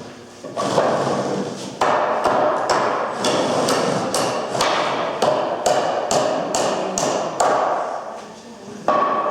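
Repeated sharp knocks, roughly two a second, like hammering, over a busy clatter of dismantling work. The strikes drop off shortly before the end.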